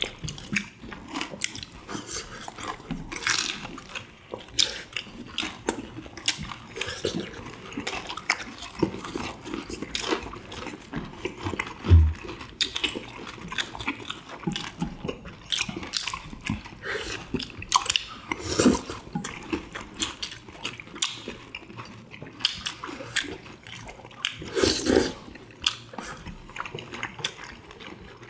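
Close-miked eating of tteokbokki and fried chicken: wet chewing, smacking and slurping of sauced rice cakes, with frequent short clicks of chopsticks against plates. A single low thump about twelve seconds in.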